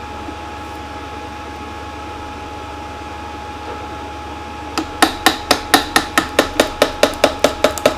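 A camera handle used as a small hammer, tapping sharply and quickly, about four strikes a second. The tapping starts about five seconds in, after a steady low hum.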